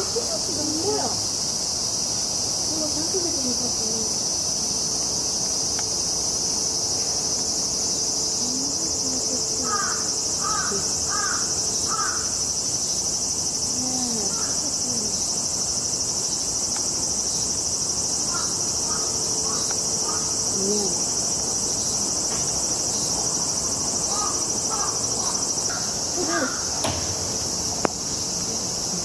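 Steady, high-pitched insect drone that runs on without a break, with a single sharp click near the end.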